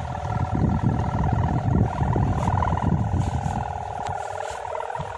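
Kite sendaren (a bow hummer on a gapangan kite) droning steadily in the wind, a fast-pulsing hum with several overtones. Wind rumbles on the microphone beneath it.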